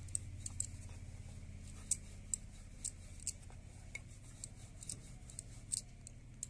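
Wooden rolling pin rolling out a potato-stuffed paratha on a wooden board: light, irregular clicks, about two a second, over a steady low hum.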